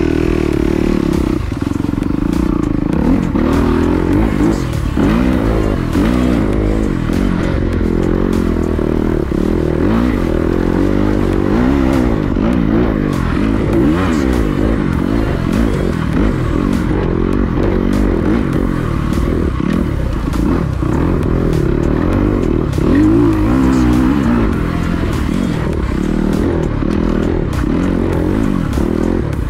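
Motocross bike engine revving up and down over and over, about once a second, as the bike is ridden through sandy whoops. Short knocks and rattles from the bike come over the bumps.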